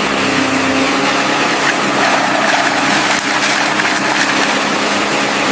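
Excavator engine running steadily: a low, even hum under a constant hiss.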